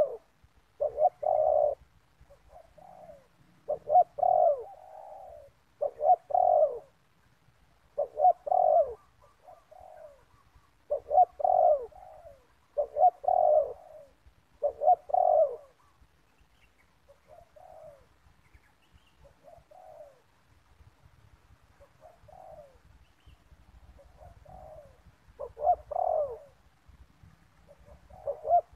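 Spotted doves cooing, repeated phrases every couple of seconds. The calls are loud for the first half, fainter for a stretch after the middle, and loud again near the end.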